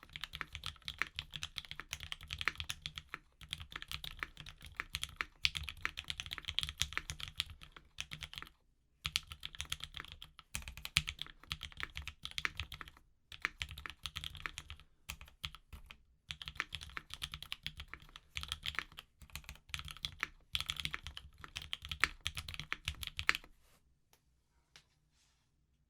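Fast typing on a Keycult No. 1/65 mechanical keyboard with lubed Alpaca linear switches, a half polycarbonate plate and OG ABS doubleshot keycaps: a dense run of key presses in bursts of a few seconds with short pauses. The typing stops about two seconds before the end, leaving only a few faint taps.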